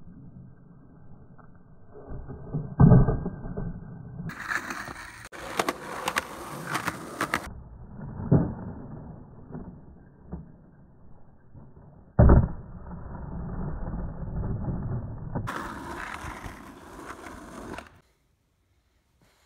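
Skateboard wheels rolling on asphalt, broken by sharp clacks and slams of the board popping and landing on flip tricks; the loudest slams come about three seconds in and about twelve seconds in. The sound cuts off about a second and a half before the end.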